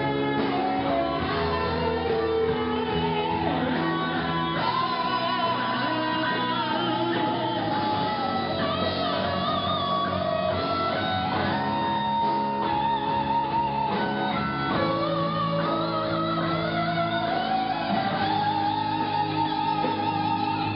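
Live gospel band playing an instrumental passage led by guitar: a lead melody of held notes that bend and waver over steady chords and bass.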